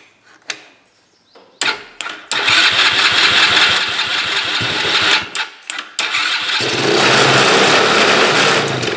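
Tao Tao four-wheeler engine starting after a couple of clicks about a second and a half in, running on starting fluid sprayed into the carburetor and revving high instead of settling to idle. It falters briefly in the middle, then revs high again. The owner suspects something stuck in the carburetor.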